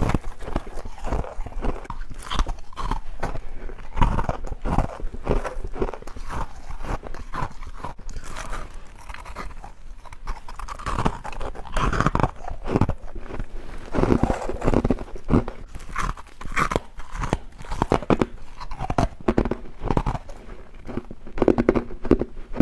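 A person biting and chewing freezer frost, with steady, irregular crisp crunches close up.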